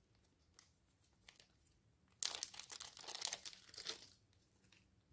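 Small clear plastic bag crinkling and rustling as it is pulled open and a pair of earrings taken out. The crinkling starts suddenly about two seconds in and lasts about two seconds, after a few faint ticks.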